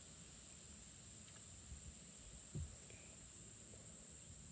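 A steady, high chorus of insects, most likely crickets, over a faint low rumble. One brief, soft low knock comes about two and a half seconds in.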